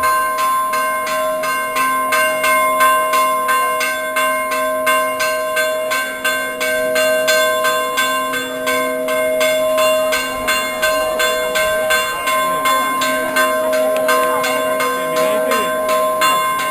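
Church bells ringing a rapid festive peal: even, repeated strokes about four a second, with several bell tones ringing on over one another throughout.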